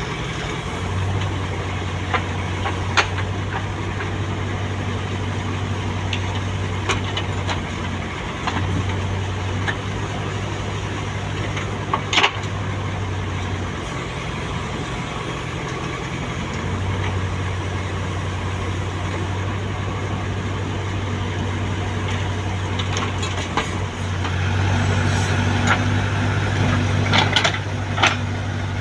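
Heavy diesel engines of a backhoe loader and dump trucks running steadily while soil is loaded, the low engine hum easing off and coming back several times. A few sharp clanks and knocks stand out, the loudest about twelve seconds in and a cluster near the end.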